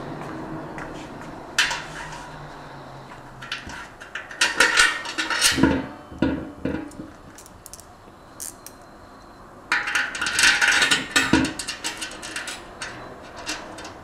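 Metal antenna hardware and tools being handled: clinks and clatter in separate bursts, with a sharp knock about a second and a half in and longer bouts of rattling around five and eleven seconds in.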